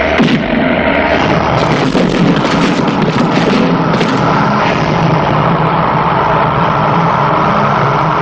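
Action-film fight soundtrack: a loud, steady drone with several sharp impact and crash effects over the first four seconds, as a man is thrown into stacked tyres and drums.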